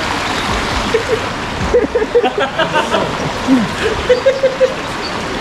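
Steady splashing and sloshing of water in a warm thermal swimming pool, with brief distant voices of other bathers about two seconds in and again near the end.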